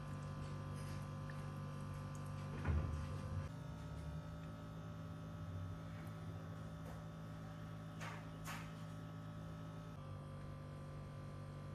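Steady electrical hum of a kitchen room tone, with a single dull clunk about three seconds in, like a ladle or bowl knocking on ceramic, and two faint brushing sounds near the end.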